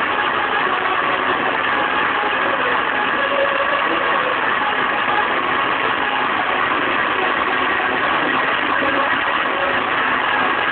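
Loud hardcore techno music, overloaded and distorted by the phone's microphone into a steady, dense noise with no clear beat.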